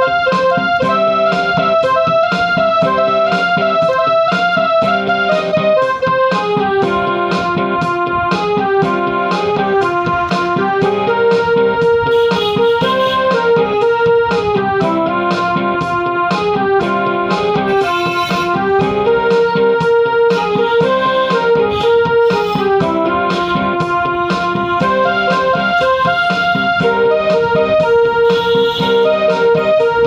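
Background music played on a keyboard: a piano-like melody over held chords, with a steady pulse of notes.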